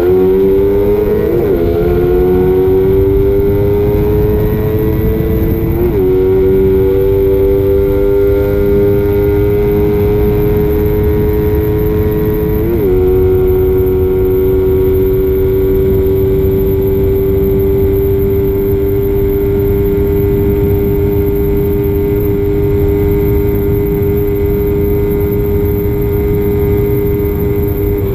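Motorcycle engine accelerating at speed, its note climbing and dipping briefly at three upshifts in the first half, then holding a steady high drone at cruising speed. Heavy wind rumble on the microphone underneath.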